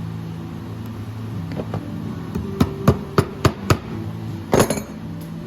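Hammer tapping tacks into a wooden crimping board, pinning the wet leather vamp: five sharp taps about three a second, then a heavier, longer knock near the end.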